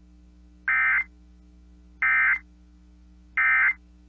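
Emergency Alert System end-of-message code: three identical short buzzing bursts of digital data tones, each under half a second, about 1.3 s apart, marking the end of the alert transmission. A faint steady hum runs underneath.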